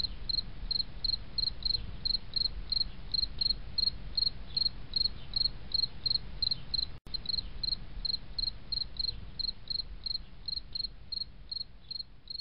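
Cricket-like chirping: short, even chirps at a steady rate of about four a second, over a low hum, with a momentary drop-out about seven seconds in.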